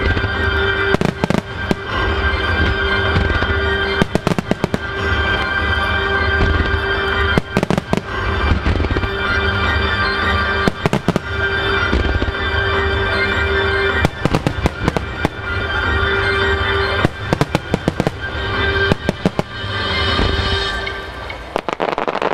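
Starmine fireworks: volleys of aerial shells going off in quick clusters of sharp bangs and crackles, over recorded music from loudspeakers that accompanies the display. The music and bursts stop near the end.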